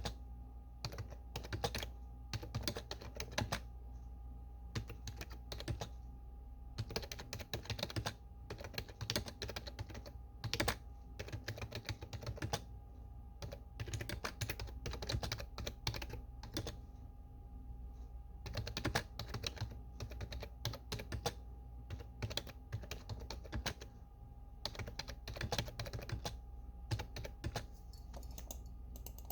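Typing on a desktop computer keyboard: quick, irregular runs of key clicks with short pauses between bursts, over a faint steady hum.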